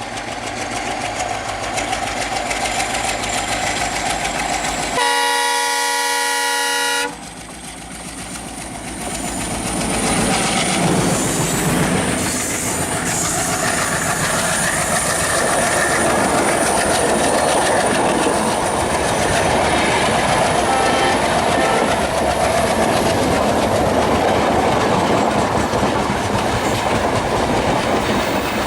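ALCo WDM3A diesel locomotive, a turbocharged V16, approaching with its engine running louder. It sounds its horn for about two seconds around five seconds in, and the horn cuts off sharply. From about eight seconds on comes the steady rush and clatter of the locomotive and coaches passing at speed.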